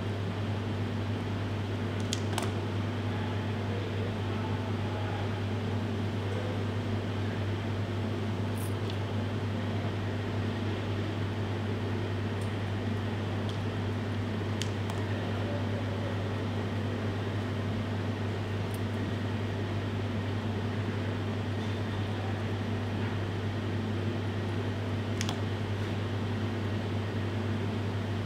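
Steady low hum and hiss of a kitchen ventilation fan, with a few faint clicks of scissors snipping cling film.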